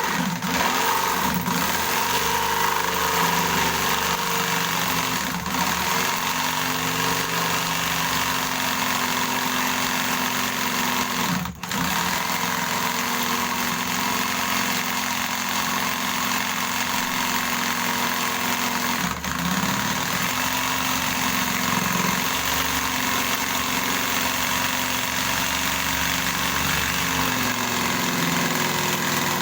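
Orion jigsaw running at speed setting 4 with its blade cutting through wood. The motor runs steadily, with a short dip about a third of the way in and another smaller one later. The user judges speed 4 a bit weak for this cut.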